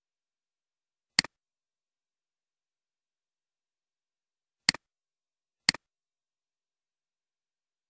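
Three computer mouse clicks, each a quick press-and-release: one about a second in, then two a second apart near the five-second mark.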